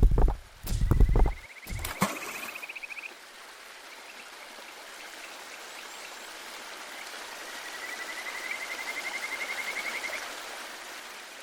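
A few heavy low thumps, then a steady hiss like running water, with a fast pulsing trill that rises slightly, heard briefly about two seconds in and again for about three seconds near the end.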